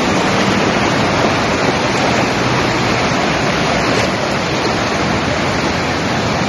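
Muddy floodwater rushing across a paved road: a loud, steady rush of churning water.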